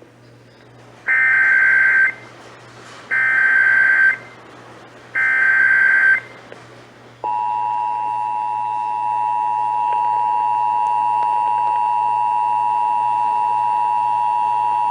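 Emergency Alert System tones, here opening a severe thunderstorm warning. First come three one-second bursts of the digital SAME header, a harsh buzzing screech, about a second apart. About seven seconds in, the steady two-tone EAS attention signal starts and holds.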